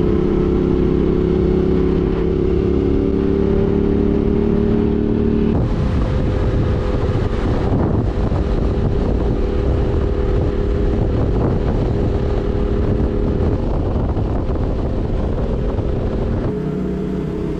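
Yamaha Tenere 700's parallel-twin engine running at a steady speed under way. From about five seconds in, a rush of wind and road noise covers the engine note, which comes through clearly again near the end.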